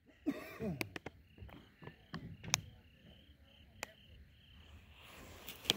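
Crickets chirping in short, evenly spaced pulses, with sharp clicks and crinkles from a plastic snack bag being handled; the crinkling builds near the end.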